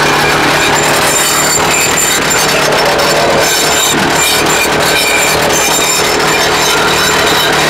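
YN30A two-stroke petrol rock drill running at full power, drilling into rock: a loud, steady racket of engine and rapid hammering.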